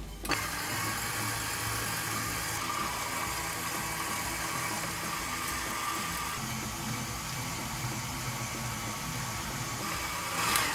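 KitchenAid stand mixer running steadily with its meat grinder attachment, grinding chunks of raw beef into mince as they are pressed down the feed tube.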